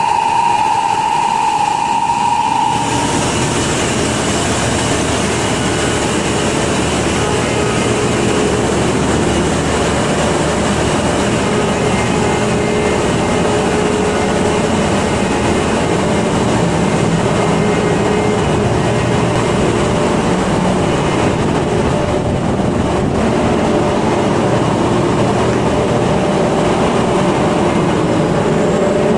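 Loud, steady machinery noise of a ship's engine room, where the dual-fuel generator engines of a diesel-electric LNG carrier are running. A steady high-pitched tone at the start stops about three seconds in, and the broad engine-room din continues after it.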